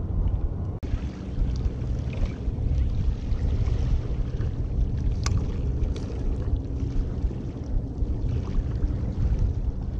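Wind rumbling on the microphone over the wash of small waves against the jetty rocks, with a few faint clicks.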